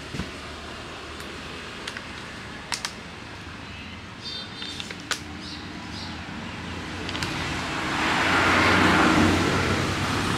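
A motor vehicle running close by over a steady low hum, its sound swelling to its loudest about eight to nine seconds in. Scattered sharp clicks and crackles in the first half, fitting an empty plastic water bottle being squeezed and handled by a young macaque.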